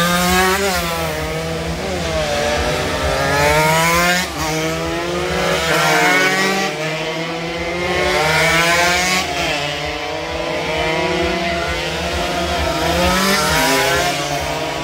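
Several small-displacement racing motorcycles running through a corner one after another. Their engines overlap and rise and fall in pitch as they brake, change gear and accelerate away.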